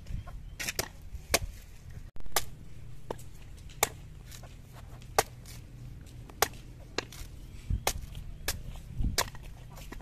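Machete chopping into the husk of a green young coconut: a series of sharp chops, roughly one a second and irregularly spaced, with one longer, louder stroke a couple of seconds in.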